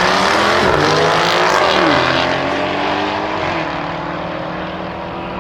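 Jaguar F-Type SVR's supercharged 5.0-litre V8 accelerating hard, its revs climbing and dropping at two quick upshifts. The sound then fades as the car pulls away.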